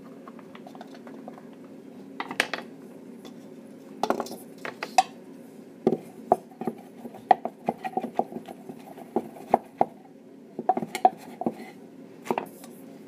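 Irregular clinks, taps and knocks of a utensil against a plastic bottle-top funnel and a stainless steel mixing bowl while a thick soap mixture is pushed and scraped, over a steady low hum. The knocks start about two seconds in and come thickest in the middle.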